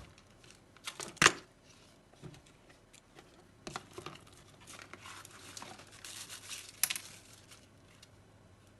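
Handling noises: a few sharp knocks and clicks, the loudest about a second in, and a stretch of rustling and crinkling, like packaging being handled.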